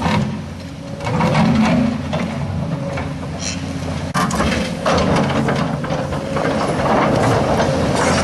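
Tracked excavator's diesel engine running under load as the machine pushes a huge boulder, with intermittent clanks and knocks from the machine and rock.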